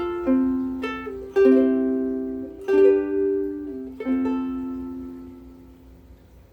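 Martin S1K koa soprano ukulele with Martin M600 strings, strummed chords: a handful of strokes about a second apart, the last one left ringing and fading over about two seconds.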